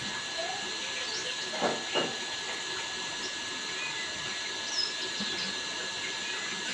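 Steady hiss with a few faint, short bird chirps scattered through it, and two soft knocks close together about two seconds in.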